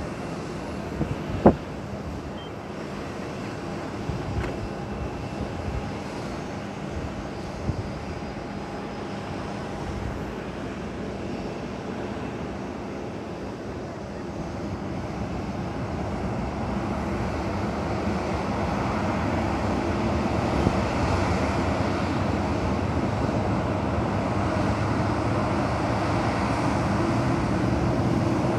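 Boeing 737-800's CFM56-7B jet engines running, a steady whine with a few held tones. From about halfway the noise swells and stays louder as thrust builds to get the jet moving. A single sharp click about a second and a half in.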